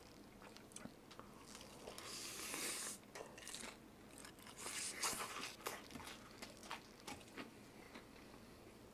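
Close-up bites and chewing of crunchy food: crisp crackling bites with a rush of crunching about two seconds in and a louder one about five seconds in, then scattered smaller crunches.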